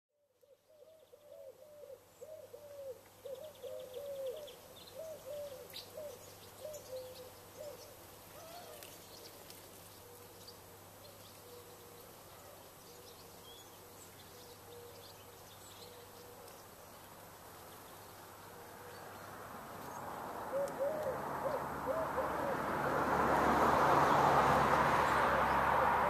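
A pigeon cooing in repeated phrases of low, rounded notes, with faint small-bird chirps in the first several seconds. From about two-thirds of the way through, a rushing noise swells until it is the loudest sound, while the cooing starts again.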